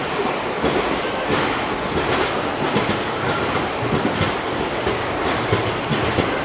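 Running noise of the 17621 Aurangabad–Renigunta Express passenger train heard from on board at an open door or window: a steady rumble of the coaches with wheels clattering over rail joints and points.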